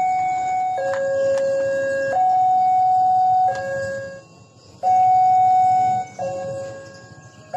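Railway level-crossing warning alarm sounding, alternating a lower and a higher electronic tone, each held about a second or more, signalling that the barriers are closing for an approaching train. The tones fade out briefly twice.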